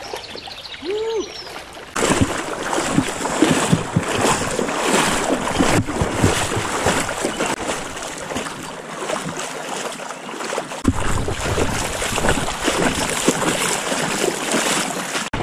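Close, continuous splashing and sloshing of river water as a person moves through it. It starts suddenly about two seconds in, after a quieter stretch.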